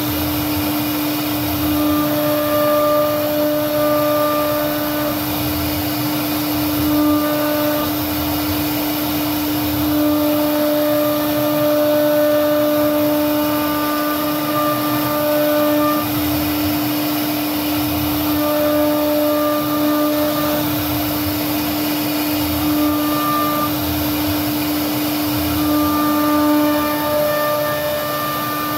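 CNC router spindle running at speed while its bit routes a floral groove into a solid wood door panel: a steady high hum under a rough cutting hiss. Fainter higher tones come and go every few seconds as the cut moves along.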